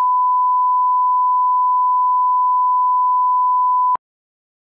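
Steady 1 kHz line-up tone played over SMPTE colour bars, a single pure beep that cuts off suddenly about four seconds in with a small click.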